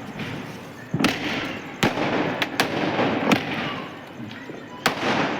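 Sky shot aerial fireworks going off: about six sharp bangs at uneven gaps of roughly half a second to a second and a half, over a steady background hiss.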